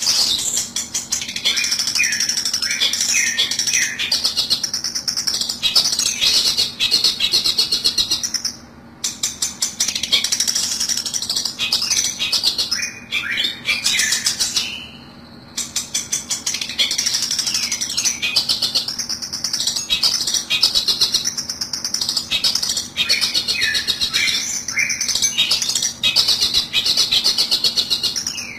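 Long-tailed shrike (cendet) lure calls: rapid, harsh, chattering calls repeated almost without pause, with two brief breaks partway through.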